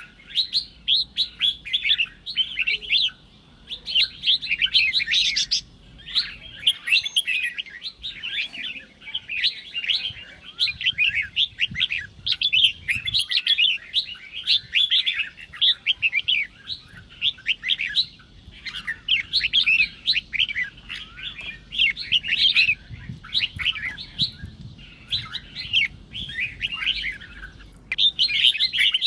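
Red-whiskered bulbul song: rapid chirping phrases following one after another, with a few brief pauses.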